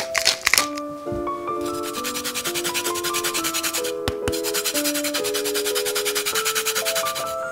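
Lemon being zested on a fine grater: rapid, even rasping strokes with a short break about four seconds in, over a gentle melodic music track.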